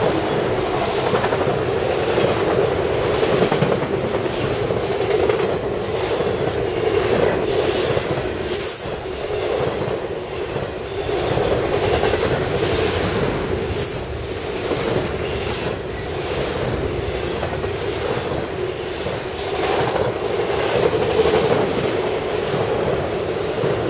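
Freight train of autorack cars rolling past at speed: a steady rumble of steel wheels on the rails, with brief high-pitched wheel squeals now and then.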